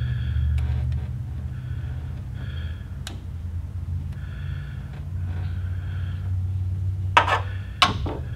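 Handling noise as the camera is worked in close: soft rubbing and breathing over a steady low hum, with two short, sharp scrapes near the end.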